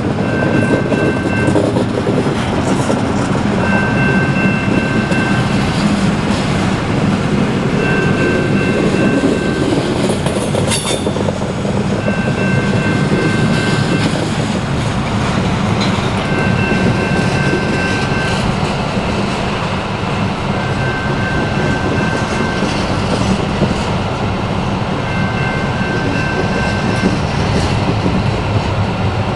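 Double-stack intermodal container train rolling steadily past: a loud, continuous rumble of wheels on rail with rapid clicking from wheels over the track. A high ringing tone comes and goes about every four seconds.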